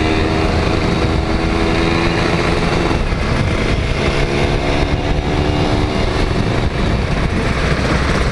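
Kawasaki Ninja 150's two-stroke single-cylinder engine running as the motorcycle cruises on the road, under a heavy steady rumble of wind and road noise. The engine tone breaks off briefly about three seconds in, then returns.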